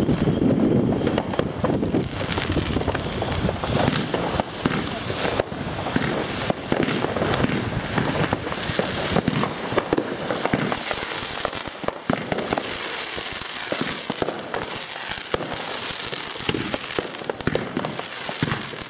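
Crackling fireworks going off in a dense, continuous stream of sharp pops and crackles. From about ten seconds in, a bright hissing spray from the fountains is added.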